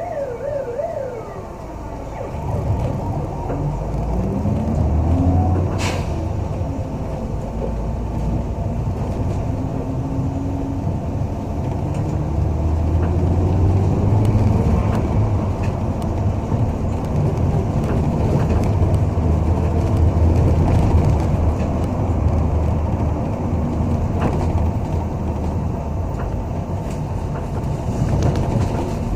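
City bus heard from inside the cabin: a low engine and road rumble, with the pitch rising several times as the bus speeds up. A wailing siren outside fades out in the first second or so, and a single knock sounds about six seconds in.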